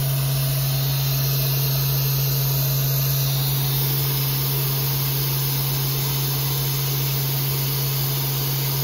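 12-horsepower HSD ES929 electrospindle on a Techno CNC router running steadily at 8000 RPM: an even, unchanging hum with a hiss above it, very quiet and very smooth, with no significant vibrations, which the owner takes as good signs of the spindle's condition.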